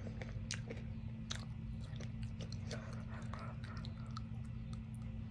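Mouth noises of licking and sucking on a hard-candy lollipop: irregular wet clicks and smacks, over a steady low hum.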